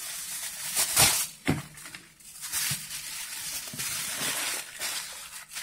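Aluminium foil crinkling and rustling as it is folded and crumpled around a potato, with two sharper crackles about a second and a second and a half in.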